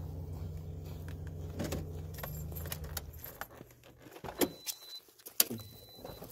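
A vehicle's engine idling with a steady low hum, which stops about three seconds in as it is switched off. It is followed by a jingle of keys and a few sharp clicks.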